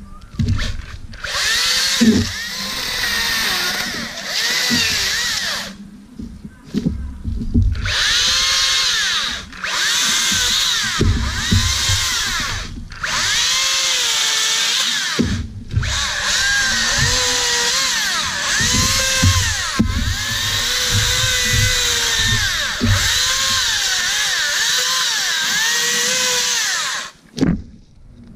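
Makita DUC353 36-volt brushless cordless chainsaw running in trigger bursts while cutting small branches. Its motor whine dips in pitch and recovers again and again as the chain bites into the wood. It stops briefly about six seconds in and again around fifteen seconds, then cuts off near the end.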